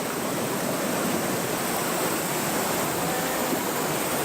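Mountain stream water flowing, a steady, even rush of water.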